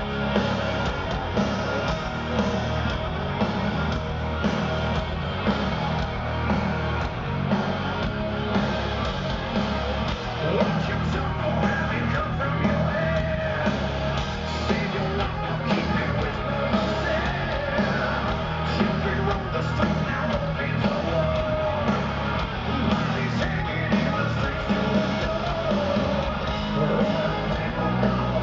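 Heavy metal band playing live: distorted electric guitars, bass and drums at full volume, with a singer's voice over the top, heard from within the audience.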